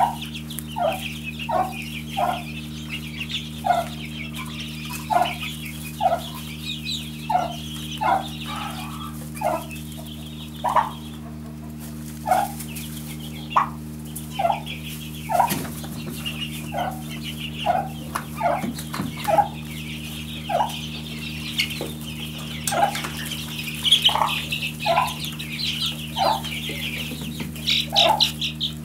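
A brood of Silkie and hybrid chicks peeping in a high, busy chorus, with a lower short call repeated more than once a second, over a steady low hum.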